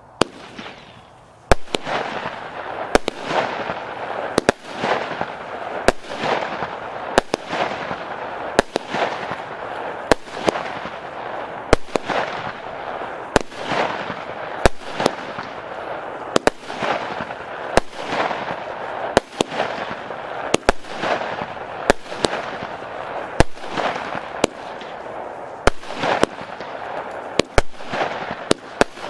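A 29-shot consumer fireworks cake (20/25 mm battery) firing in sequence, starting about a second and a half in: a sharp report roughly every one and a half seconds, closer together near the end. Each report is followed by a crackle that dies away as the star burst opens.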